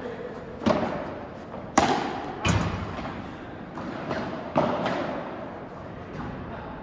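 Padel rally: the ball is struck by rackets and bounces around the court, giving a string of sharp hits roughly a second apart, each ringing on briefly. The loudest crack comes about two seconds in, and a heavier, deeper thud follows just after.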